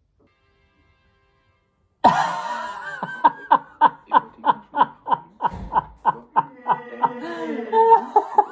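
A man laughing loudly in a fast, regular run of "ha-ha-ha" bursts, about three or four a second, starting suddenly about two seconds in after near silence.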